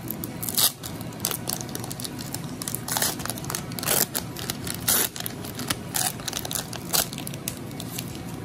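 A Pokémon TCG booster pack's foil wrapper being torn open and crinkled by hand: a run of sharp crinkling crackles, several of them louder.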